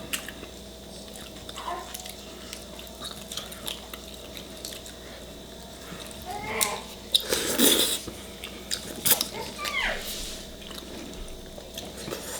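Close mouth sounds of people eating spicy chicken feet and dumplings: chewing and biting, with scattered small clicks and smacks, and a louder, longer burst about seven to eight seconds in.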